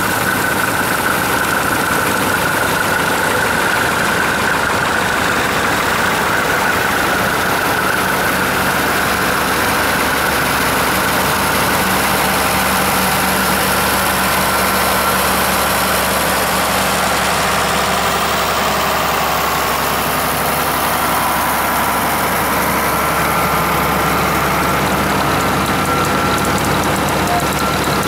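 Several antique farm tractors driving past one after another, their engines running steadily at low speed.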